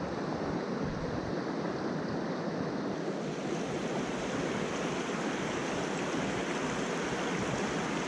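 Shallow mountain stream running over rocks and gravel riffles, a steady rushing of water.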